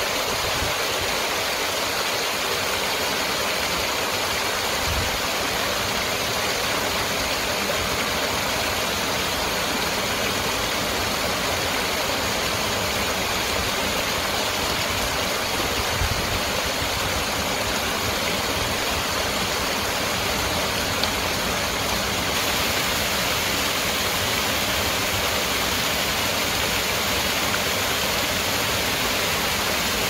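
Small waterfall pouring over stone steps into a stream: a steady rush of splashing, churning water.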